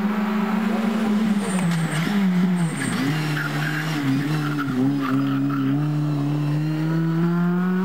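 Honda Civic race car's engine at high revs through a hairpin. The revs drop and waver about two to three seconds in, then climb steadily as the car accelerates away.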